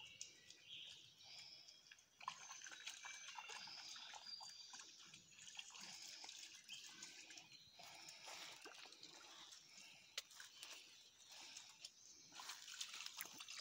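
Faint sloshing and dripping as two small dogs wade and settle in a muddy puddle, with short high chirps scattered over it.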